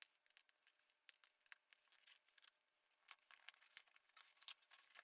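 Near silence, with faint scattered clicks and ticks, more of them in the second half, from a cardboard keyboard box being opened and handled.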